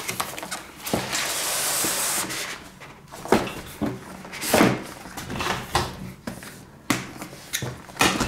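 A cardboard sleeve sliding off a scale's cardboard box, with a long scraping hiss about a second in. Then come several separate knocks and taps as the box is handled and set down.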